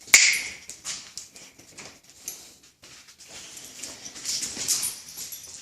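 A sharp finger snap near the start, then light scattered clicking and shuffling from a boxer dog moving about, its claws on the floor.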